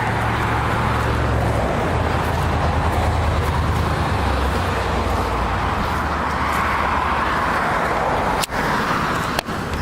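Road traffic noise: a continuous rush of passing cars that swells and fades over a few seconds, over a steady low rumble.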